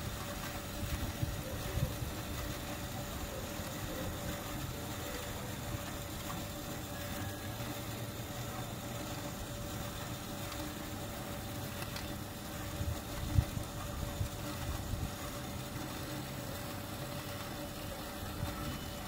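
Steady mechanical hum with a faint constant tone, broken by a few short low bumps, the sharpest about thirteen seconds in.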